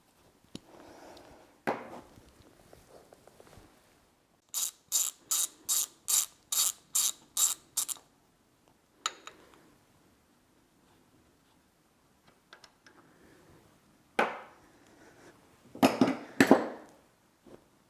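A ratchet wrench clicking nine times in an even rhythm, about two and a half clicks a second, as a bolt is turned. Scattered knocks and clatter of metal parts being handled come before and after, loudest near the end.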